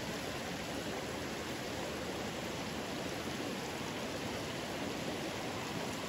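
Creek water flowing over rocks, a steady, even rushing.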